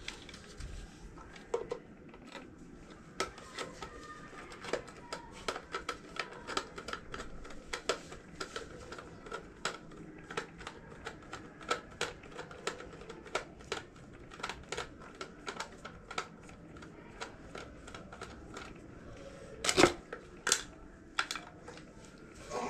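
Light, irregular clicking and scraping of a plastic toy's battery cover being worked open with a knife, a few clicks a second, with two louder knocks about twenty seconds in.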